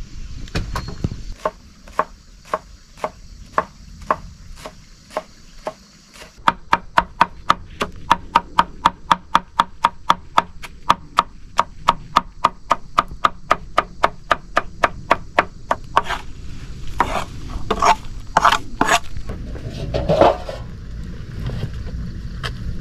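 Large knife chopping leafy greens on a wooden board in steady, even strokes, about two a second at first, then quickening to about four a second from about six seconds in. The chopping stops about two-thirds of the way through, and a few louder, irregular knocks follow.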